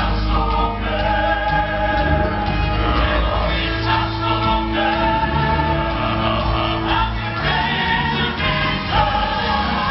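Two southern gospel quartets singing together live: a group of about ten men's voices in close harmony on handheld microphones, holding long notes.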